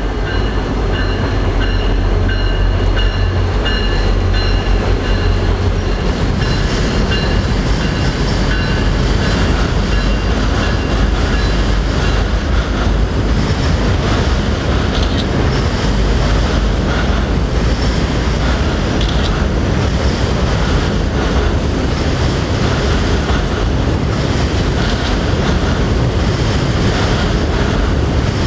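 CSX passenger train rolling past on a trestle bridge: the wheels and cars give a steady rumble and clatter. The deep rumble is heaviest for the first six seconds or so. High, thin ringing tones come and go through roughly the first half.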